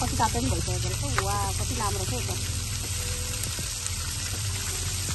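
Meat sizzling in foil trays and on foil over a charcoal grill, a steady hiss. Voices talk over it for about the first two seconds.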